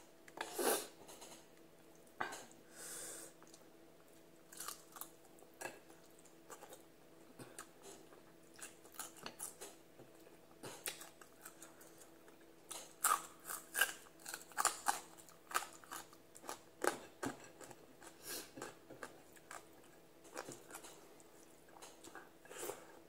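Close-up eating sounds: chewing and crisp crunching of fried tilapia and rice eaten by hand, in irregular bursts that come thickest in the middle. A faint steady hum runs underneath.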